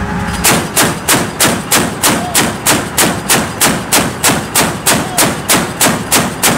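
Mk 38 deck gun's 25 mm M242 Bushmaster chain gun firing a long automatic burst of about three evenly spaced shots a second, starting about half a second in.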